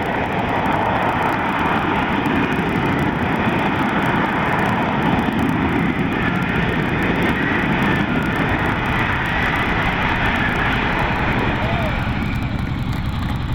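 Steady, loud jet noise from an F-35B's F135 engine and shaft-driven lift fan while the jet hovers and comes down in a vertical landing.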